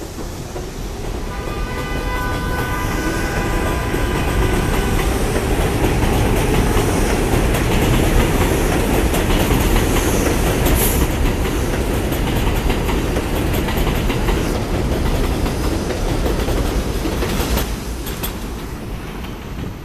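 An R62A subway train accelerating out of an elevated station, its wheels clattering over the rails in a loud, steady rumble that builds over the first few seconds and falls away near the end as the last car clears the platform. A steady hum of several tones sounds for the first few seconds.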